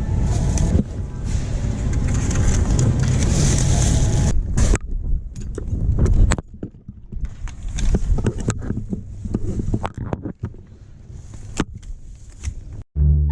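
Car driving, a steady low rumble that cuts off sharply about six seconds in, followed by quieter scattered clicks and knocks.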